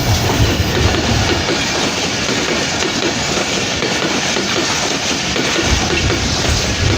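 Intercity express train running at speed, its wheels clattering in a fast, even rhythm over the rail joints, with a steady loud rushing of the cars.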